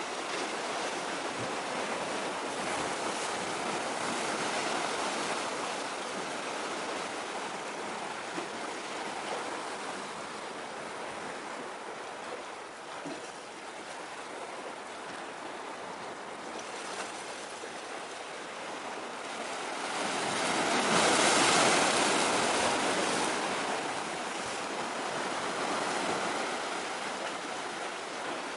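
Sea surf washing on the shore, a steady rushing that swells louder for a few seconds about two-thirds of the way through.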